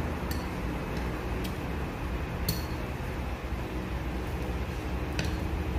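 A few faint, sharp clinks of a metal spoon against ceramic dishes, the clearest about two and a half seconds in, over a steady low hum.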